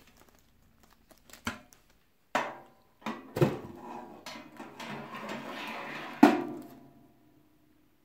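Chrome wire oven rack knocking and scraping against the metal walls and rack slots of a Hamilton Beach toaster oven as it is set in place. There are several sharp metallic knocks that ring briefly, with a scraping rustle between them, and the loudest knock comes about six seconds in.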